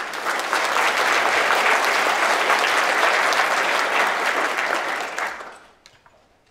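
Audience applauding: dense clapping that holds steady, then dies away about five and a half seconds in.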